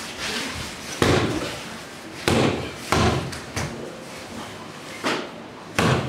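About six dull thuds at uneven intervals: aikido practitioners thrown down onto a padded mat floor, their bodies and hands hitting the mat in breakfalls.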